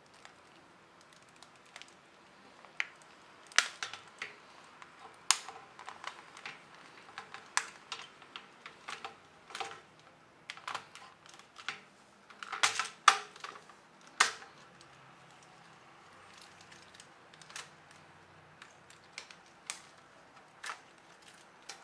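Plastic case of a Logitech K220 wireless keyboard being handled and pried apart: irregular sharp clicks, taps and snaps of plastic, loudest in a cluster a little past halfway.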